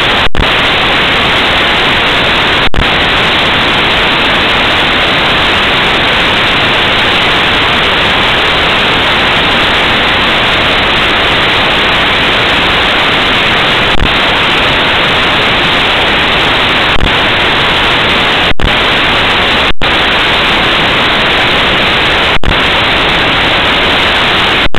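Loud, steady static hiss that fills the whole sound track and covers everything else. It is broken by a few very brief clicks or dropouts, around the start and several times in the second half.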